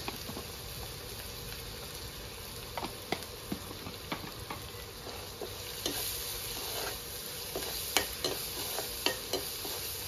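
Onion, ginger and garlic frying in oil in a wok: a steady sizzle, with a spatula stirring, scraping and tapping against the pan at irregular moments, a few louder knocks near the end.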